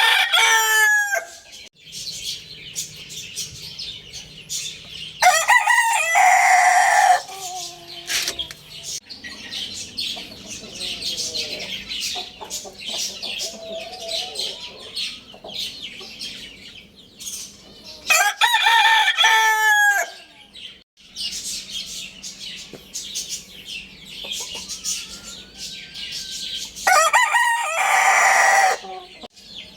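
Young rooster crowing: one crow ends about a second in, then three more follow, each about two seconds long and spaced roughly ten seconds apart. Between the crows runs continuous high-pitched chirping, with some softer lower calls.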